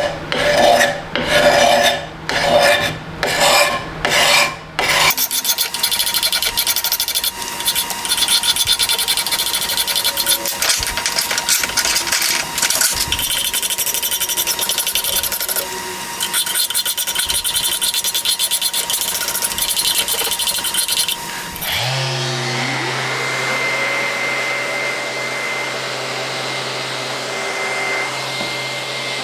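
Steel card scraper being drawn over an old hatchet to strip paint: about eight separate strokes, then continuous rapid rasping scraping. About 22 seconds in, an electric power tool motor starts with a rising whine and runs on steadily.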